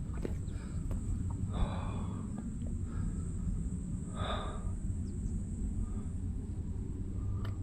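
A hiker breathing hard on a mountain climb, with two strong breaths about one and a half and four seconds in, over a steady low rumble.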